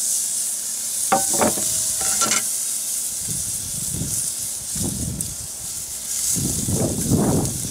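Thick strip loin steak sizzling steadily on a kamado grill grate over coals at around 650 degrees, the start of a hard sear. Metal tongs clink and ring against the grate a few times in the first couple of seconds, and low, dull swells of sound come and go in the second half.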